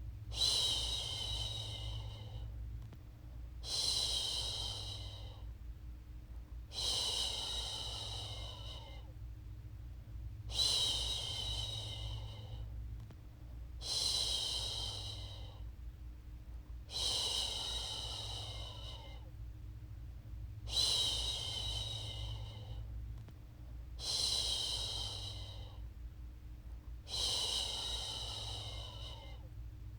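A woman's voice shushing, "shhh", to soothe a baby to sleep. Each hissing shush lasts about a second and repeats steadily about every three seconds, over a low steady hum.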